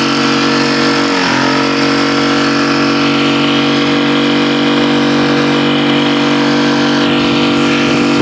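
Mercury F5M four-stroke outboard motor running steadily under way. Its pitch dips briefly about a second in, then holds steady again.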